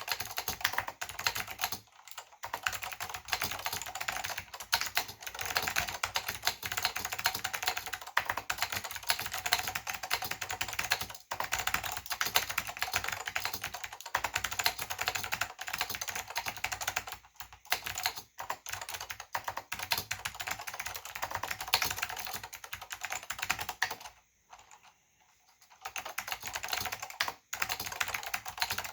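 Fast continuous typing on a Northgate OmniKey/Plus mechanical keyboard with white Alps SKCM switches and ABS doubleshot keycaps, a dense stream of clicky keystrokes broken by a few short pauses, the longest about 24 seconds in.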